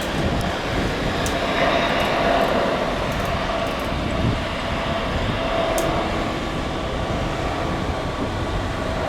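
Jet airliner engines running: a steady, loud rumble with a faint high whine.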